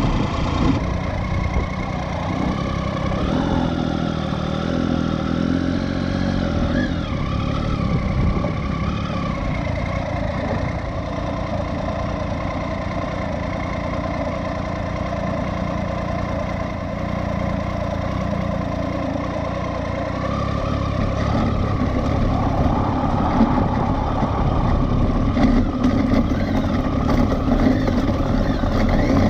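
Triumph Tiger 800XC's three-cylinder engine running while the motorcycle is ridden slowly over a dirt and rocky trail, its pitch rising and falling a few seconds in as the throttle changes.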